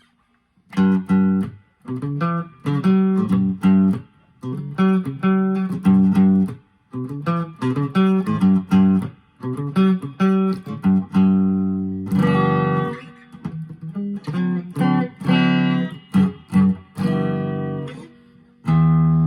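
Clean electric guitar tone from a 1983/84 Japanese-made Squier Bullet, played in short picked chord phrases separated by brief pauses.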